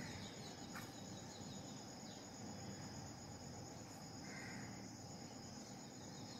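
Faint, steady high-pitched chirring of crickets.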